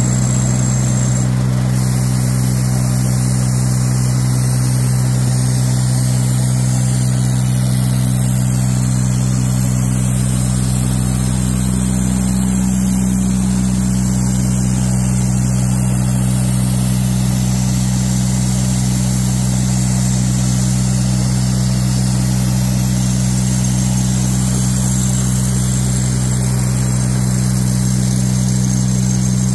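Construction machinery engine running steadily at one speed, a low, even hum that does not change.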